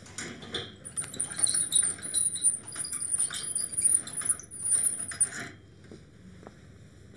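Manual hospital bed's crank handle being turned, the metal mechanism squeaking and clicking rapidly, stopping about five and a half seconds in.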